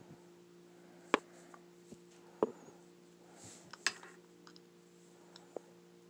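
Handling noise from a paintball gun and a flashlight: a few scattered sharp clicks and taps, the loudest about a second, two and a half and four seconds in. A steady low hum runs under them.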